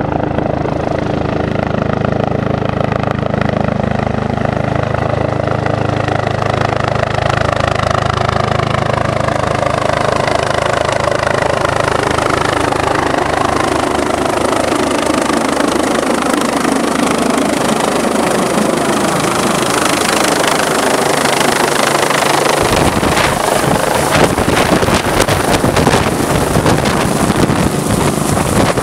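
Medical helicopter approaching and coming down close by: steady rotor beat under a turbine whine whose pitch slides downward. In the last few seconds, as it hovers close overhead, gusty rotor downwash buffets the microphone.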